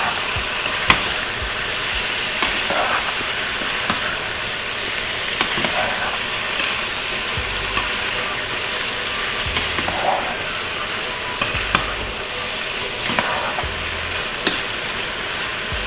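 Pork belly cubes sizzling as they fry in a pot, stirred with a metal spoon that clicks against the pot now and then. The pork is frying to render out its fat.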